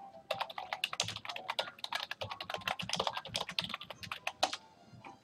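Typing on a computer keyboard: a quick, irregular run of key clicks that starts just after the beginning and stops shortly before the end.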